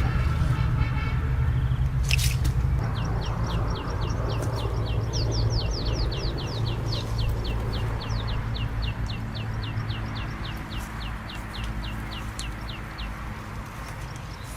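A bird calling a long fast series of short, high, downward-sliding notes, about four a second, that starts about three seconds in and stops near the end. A steady low rumble runs underneath, with a single sharp click about two seconds in.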